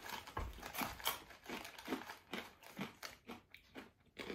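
Crunchy snack mix of puffs, corn kernels and nuts being chewed, a run of irregular crunches, with the snack bag crinkling as pieces are picked out.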